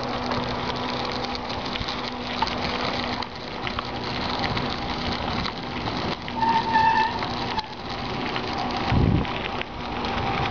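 Bicycle rolling along a gravel path: a steady crackling rattle of tyres on grit and the bike shaking. A short squeak comes about two thirds of the way through, and a low thump near the end.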